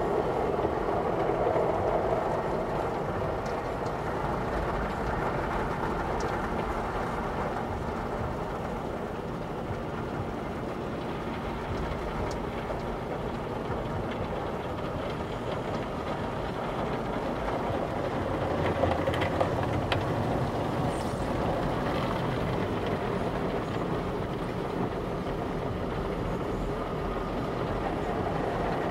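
Automatic car wash heard from inside the car's cabin: water spray and spinning brushes washing over the windshield and body, a steady rushing noise that swells a little about two-thirds of the way through.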